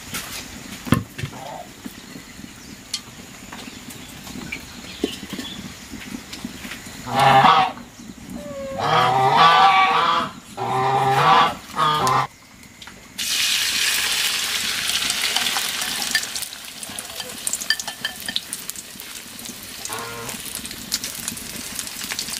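Wood fire crackling in a clay stove, then a run of loud farm-animal calls lasting about five seconds. About thirteen seconds in, beaten egg hits hot oil in a wok with a sudden loud sizzle that settles into steady frying.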